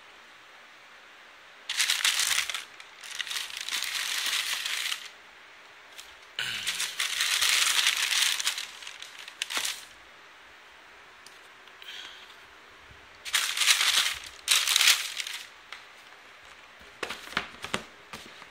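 Packaging paper crinkling and rustling in several bursts of a few seconds as a pair of sneakers is taken out of its shoe box, with a few light knocks and clicks between them.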